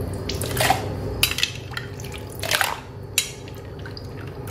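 Metal ladle scooping iced fruit drink from a plastic bowl full of ice cubes and pouring it into a plastic cup: about four short splashes of liquid.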